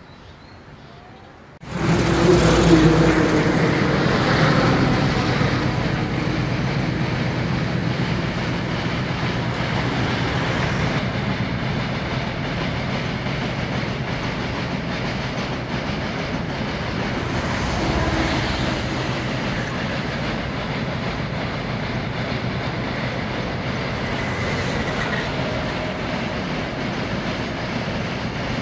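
Freight train of open wagons rumbling and clattering across a steel girder bridge, starting suddenly about two seconds in and then running on steadily.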